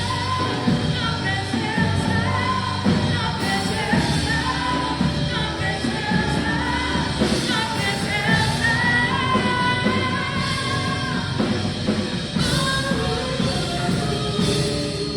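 Worship band playing a slow praise song, with a singer holding long, wavering notes over the band.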